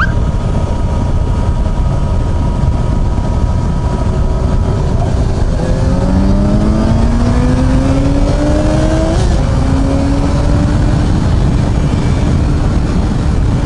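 Yamaha FZ6R's 600 cc inline-four engine pulling up through the revs for about four seconds, its pitch rising steadily, then dropping suddenly at a gear change about nine seconds in, over a constant rush of riding wind.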